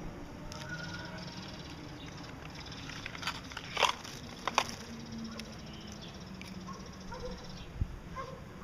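Gouldian finches giving a few faint short calls, with a cluster of short sharp bursts near the middle, the loudest two about a second apart.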